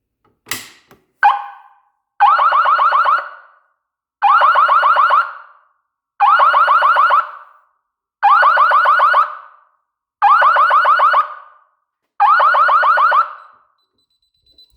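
A click as a Fire-Lite BG-12L fire alarm pull station is pulled, then a short blast, then the fire alarm horn sounds in pulses: six loud blasts of about a second each, one every two seconds, before it stops near the end.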